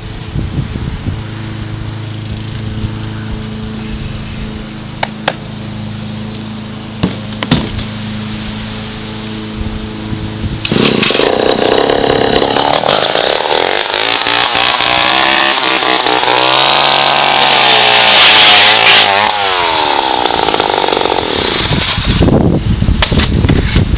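Petrol chainsaw idling steadily for about ten seconds, then revved hard, its pitch rising and falling as it works, and loudest a few seconds before the end.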